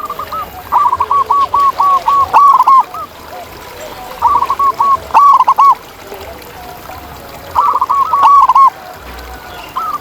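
Zebra dove (perkutut) cooing: three bursts of quick, staccato rolling notes, each a second or so long, with pauses between, and fainter lower cooing behind them.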